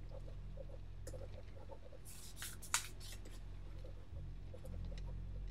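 Quiet room tone with a steady low hum, faint scattered small ticks, and a brief rustle with a sharp click about two and a half seconds in.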